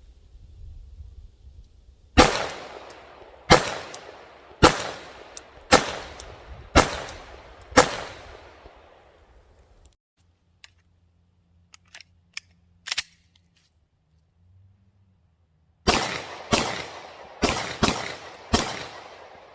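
Glock 19 9mm pistol firing in two strings: six shots about a second apart, then a pause of several seconds with a few faint clicks, then five quicker shots. Each shot leaves a short decaying echo.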